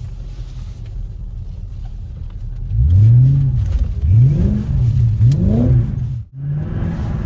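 Mercedes CLK's naturally aspirated 5.0-litre V8 running steadily, then revved three times in quick succession, each rev rising and falling in pitch, with a brief sudden dropout near the end.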